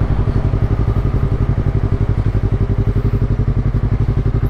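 Yamaha MT-03's 321 cc parallel-twin engine running steadily under way at cruising speed, a fast even throb with no change in pitch.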